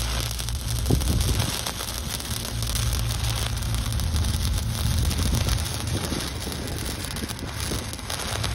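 Stick-welding arc crackling and sizzling steadily as the rod burns along a steel pipe joint, with a low steady hum underneath.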